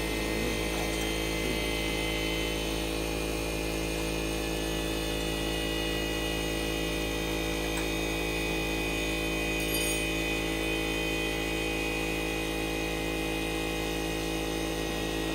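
A steady hum with several constant tones, holding one level throughout, with a faint tick about ten seconds in.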